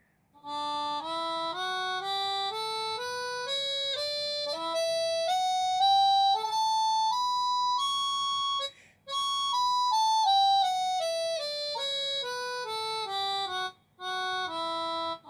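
Synthesized harmonica voice from the Fluidsynth app's GeneralUser soundfont, played from a Warbl breath-controlled MIDI wind controller. It climbs a scale note by note and then comes back down. The sound cuts out briefly twice where the player's tongue blocked the airflow into the controller.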